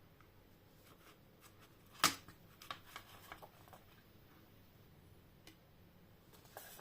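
Steelbook Blu-ray case being handled: one sharp click about two seconds in, followed by a quick run of lighter clicks and taps, and a couple of faint ones near the end.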